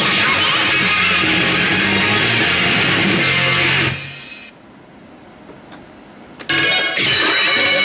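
Loud rock music with strummed electric guitar from a pachislot machine's speakers. About four seconds in it fades out to a quieter gap with a couple of short clicks, and the music starts again loud about two and a half seconds later.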